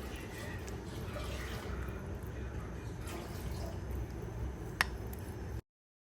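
Kitchen handling sounds: faint liquid and light clinks of dishes over a low steady hum, with one sharp click near the end before the sound cuts off.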